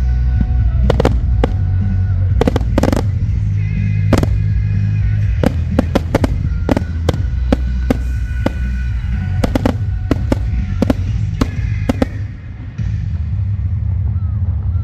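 Fireworks display: a rapid series of sharp bangs from bursting shells, going off several times a second, over music with a steady deep bass.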